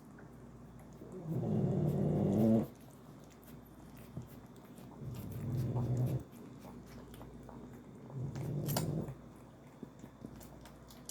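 Loud snoring: three long, low snores about three to four seconds apart, each breaking off abruptly.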